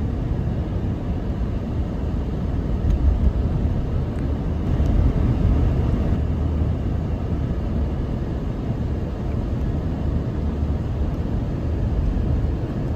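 Steady low rumbling noise with no clear pitch, heaviest in the bass and never letting up.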